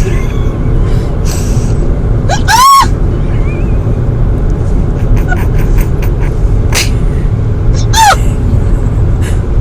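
A woman's hiccups: two short, high-pitched squeaks that rise and fall in pitch, about five seconds apart, over a steady low rumble.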